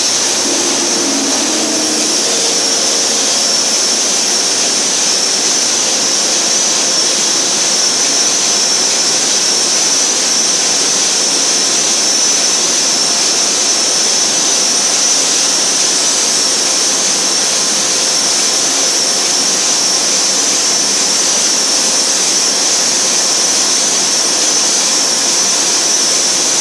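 Paper machine running in a mill: a loud, steady industrial din with a strong high-pitched hiss over it.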